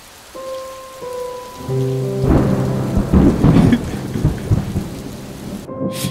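Rain sound effect with a rumble of thunder about two seconds in, under soft sustained music notes. The rain cuts off near the end.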